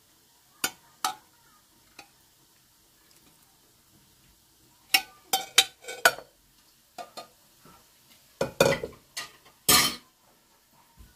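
Kitchen utensils and dishes clinking and knocking in irregular bunches: a couple of sharp clinks near the start, a quick run of them in the middle, then a few longer scraping knocks near the end.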